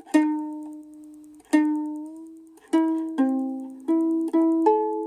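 A small ukulele being picked: about seven notes and chords, each left to ring and fade, slow at first and then coming quicker, about two a second, in the second half.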